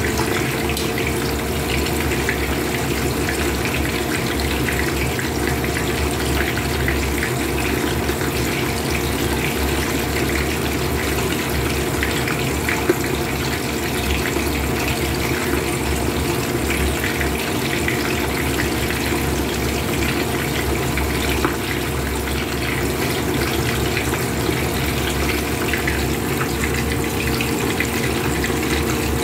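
Hot oil sizzling and bubbling steadily around several whole fish frying in a pan, with fine crackling throughout. A steady low hum runs underneath.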